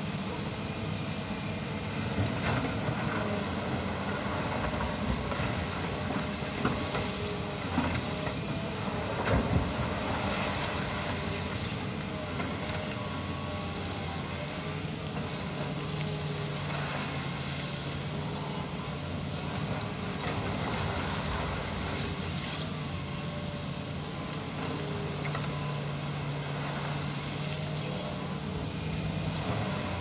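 Fiat Kobelco EX355 crawler excavator running while it digs gravel: a steady diesel engine and hydraulic hum, with a few sharp knocks of the bucket in the gravel in the first ten seconds. A steadier low hum sets in about halfway through.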